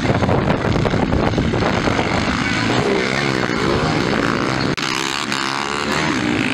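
Several motocross dirt bikes on the track, their engines revving hard, the pitch rising and falling as riders work the throttle through the turns. The sound breaks off sharply for an instant a little before five seconds in, then carries on.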